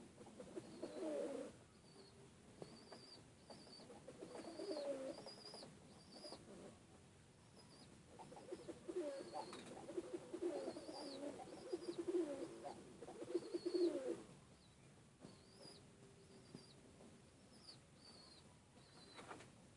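Domestic pigeons cooing in bouts, the longest run through the middle. A thin high chirp repeats about once a second throughout.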